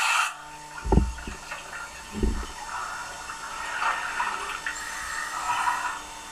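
Water sloshing and splashing in a small underwater air pocket, with two low thumps about one and two seconds in and small drips and splashes after. A steady rush of air, like a regulator venting, cuts off just as it begins.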